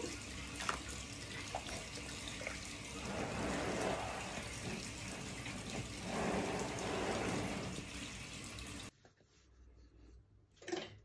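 Wet, watery sloshing and squelching of soft churned butter being scraped and worked with a spatula in a plastic basin. It stops abruptly about nine seconds in.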